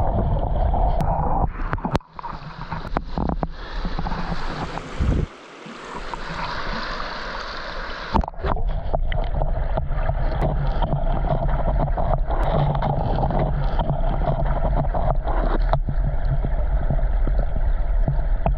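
Stream current rushing, heard muffled and bass-heavy from underwater through a submerged camera's housing, with a few scattered clicks and knocks. Between about two and eight seconds in, the sound thins and turns hissier, then the full underwater rush returns.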